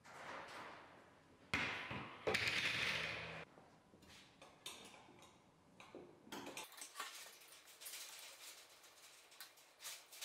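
A metal floor fan being taken apart by hand. Its chrome wire grille rattles and scrapes as it is lifted off and laid on a wooden workbench. Then come scattered light clicks and taps of the blade and the fan body being handled.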